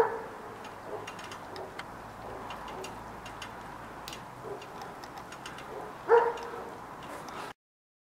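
Small birds chirping in short, high notes, with a dog barking once at the start and once about six seconds in. The sound cuts off suddenly near the end.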